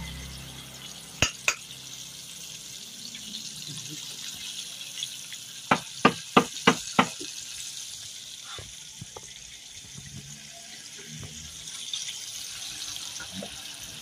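Chicken pieces deep-frying in hot oil in a wok, a steady sizzle. Sharp clicks of metal tongs come twice about a second in and again in a quick run of five about six seconds in.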